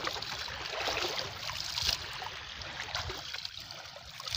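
Water splashing and trickling at the shallow edge of a reservoir: small waves washing at the shore, and water pouring from cupped hands near the start, with a few brief surges of splashing.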